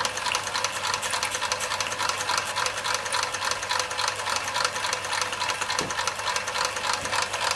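Vintage Doll 365 toy steam engine running fast on live steam with the steam turned up: its twin cylinders and valve gear keep up a rapid, even chuffing clatter as the flywheel spins.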